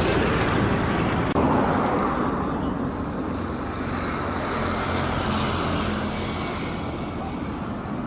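Bulldozer's diesel engine running steadily under work, slowly easing off a little.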